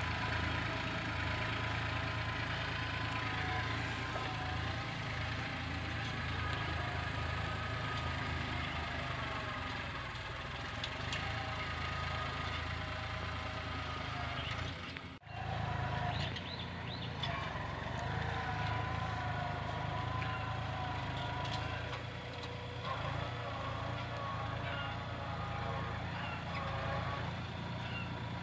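Farm tractor engine running steadily while the tractor pulls a disc plow through the soil. The sound drops out for an instant about halfway through.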